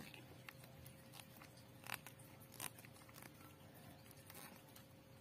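Faint clicks and small scrapes of a screwdriver turning a small screw into a plastic switch cover on an electric sprayer, with a sharper click about two seconds in and another about two and a half seconds in. A faint steady hum sits underneath.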